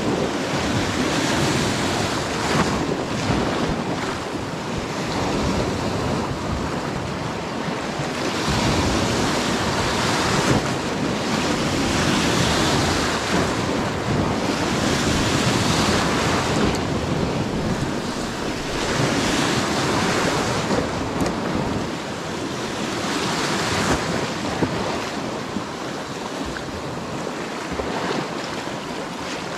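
Sea waves breaking and washing on the shore, a steady rush that swells louder every few seconds, with wind buffeting the microphone.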